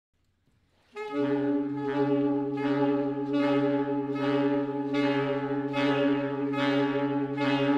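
Saxophone quartet of alto, two tenors and baritone coming in about a second in on a held chord: the low notes stay steady while the upper sound swells in regular pulses, a little faster than once a second.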